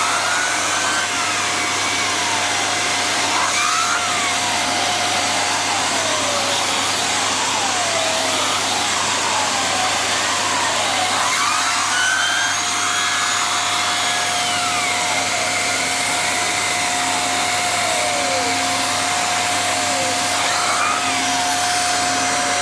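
Hoover Xarion bagless canister vacuum cleaner running with its turbo nozzle being tried out: a steady motor whine over a loud rush of air. A second, higher whine glides up and down again and again as the turbo brush speeds up and slows with the nozzle's movement.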